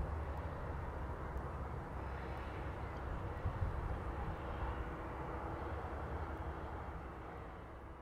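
Distant electric train running away along the line: a steady low rumble of wheels on rail that fades slowly toward the end.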